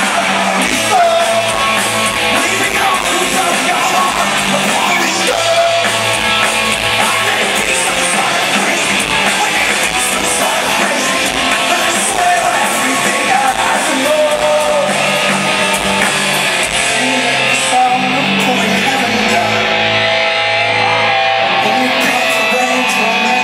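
Rock band playing live: loud, steady music with electric guitar and a lead singer.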